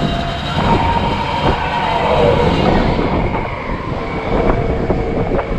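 Steady mechanical rumble of the Astro Orbiter's rocket ride vehicle circling in the air, with a few sharp knocks.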